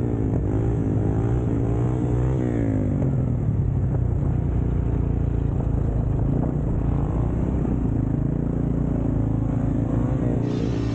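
Quad ATV engine running close by, a steady low hum with a pitch that wavers up and down, most likely the Yamaha Raptor 700R's single-cylinder four-stroke idling, mixed with another quad revving while it wheelies farther off.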